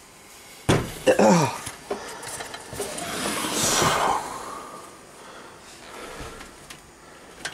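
A benchtop scroll saw set down on a wooden workbench with a knock about a second in, then scraping and squeaking as it is shifted into place on the bench.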